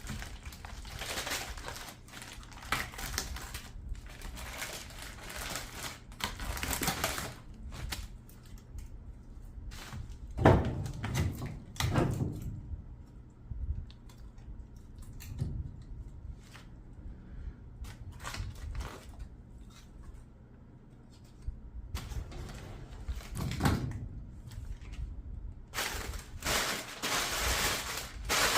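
Firewood and fireplace gear being handled while a fire is built: irregular clatters, knocks and rustles, with heavier thuds about ten, twelve and twenty-three seconds in.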